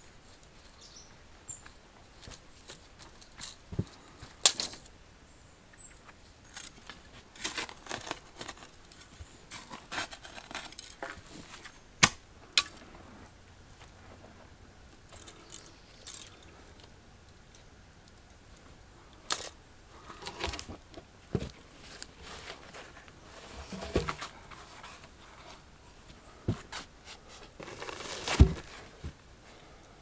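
Hand work in a pit of loose soil: scattered sharp knocks and clicks from tools and timber, with short bursts of scraping and rustling in the dirt.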